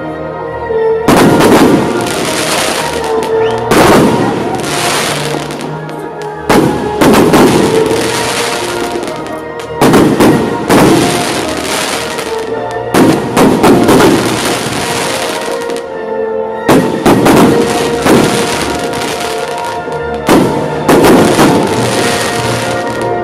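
A fireworks display with bursting shells and crackling glitter, set to loud music. A sharp bang or hit comes about every three and a half seconds, each followed by a spell of crackling.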